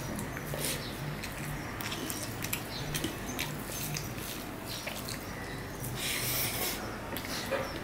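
Close-up eating sounds of rice and curry eaten by hand: wet chewing, lip and tongue clicks, and the squish of fingers mixing rice on a steel plate. A louder noisy burst comes about six seconds in, as a mouthful goes in.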